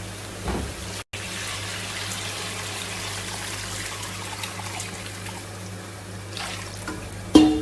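Hot water being poured into a pot of browning chicken pieces, a steady pouring trickle, with a clank near the end.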